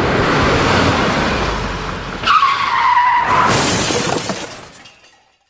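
Car sound effect: a rushing vehicle noise, then a tyre screech about two seconds in that slides down in pitch for about a second, followed by a bright hissing burst, fading out near the end.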